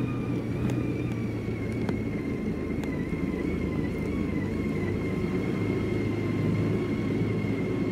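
BMW K1600 GT's inline-six engine running at low speed as the motorcycle rolls slowly over cobblestones: a steady low rumble with a faint, thin whine above it.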